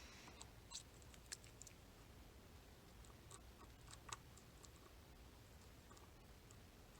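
Faint, irregular small metallic clicks of a pick working the sliders inside an ASSA Desmo 8 high-security cam lock, with a homemade tensioner in the keyway, searching for the binding slider.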